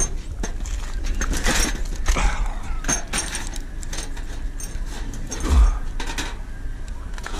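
Wire-mesh live trap with a raccoon inside rattling and clinking as it is handled and set on pavement, with a dull thump about five and a half seconds in.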